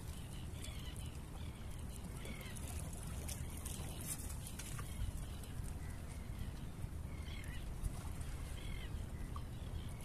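Outdoor seaside ambience: wind rumbling on the microphone and water lapping against the rocks, with short chirping bird calls recurring in small bursts.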